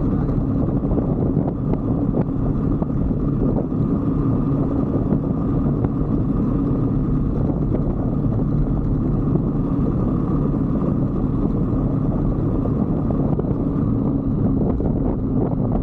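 A 125cc motorbike engine running at a steady speed while riding, with a constant drone and no marked revving.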